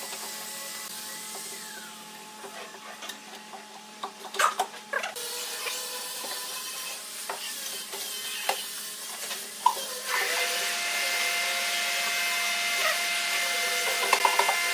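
Wooden drawers sliding in and out on metal drawer slides, with knocks and clicks as they are pushed shut. A steady machine hum with whining tones runs underneath and gets louder about ten seconds in.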